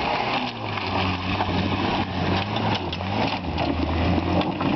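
Toyota 4x4's engine running hard under load as it climbs a steep dirt bank. Its tyres scrabble over dry earth and stones, giving short crackles over the steady engine note.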